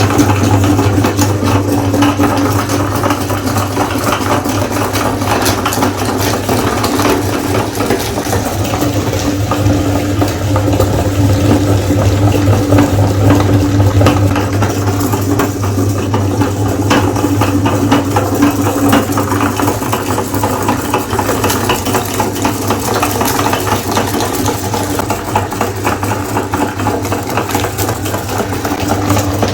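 Electric meat grinder motor running with a steady hum, with dense rattling and crackling as it grinds ice cream bars.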